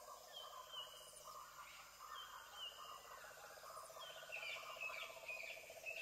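Faint outdoor birdsong: short high chirps repeating every half second or so, over a low, rapid, continuous trill.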